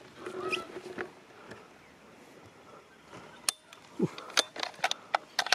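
A quiet lull, then a quick run of sharp clicks and taps over the last two seconds, like handling noise on gear or a rifle.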